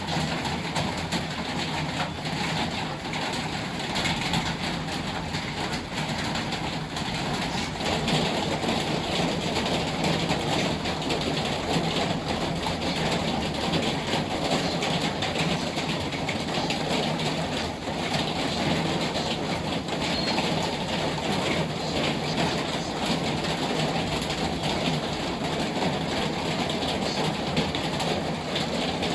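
Steady heavy rain, a dense continuous patter and hiss that swells in its lower part about eight seconds in.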